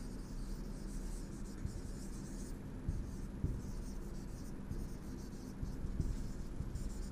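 Marker pen writing on a whiteboard: faint, uneven rubbing strokes of the felt tip across the board as letters are drawn, over a low steady hum.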